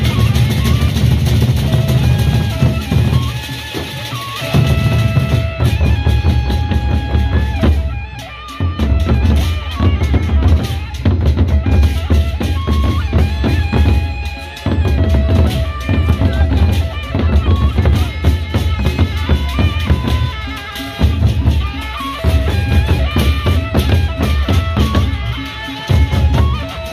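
Sasak gendang beleq ensemble playing in procession: large double-headed barrel drums beaten in a fast, heavy, interlocking rhythm, with higher ringing pitched notes above them. The low drumming drops out briefly every few seconds and then comes back in.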